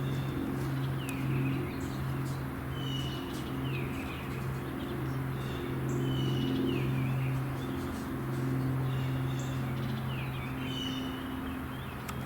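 Cessna 421C Golden Eagle's twin geared, turbocharged Continental flat-six piston engines running steadily, a low hum that swells and fades slowly. A bird sings over it, repeating a short phrase of a held note and falling chirps about every two and a half seconds.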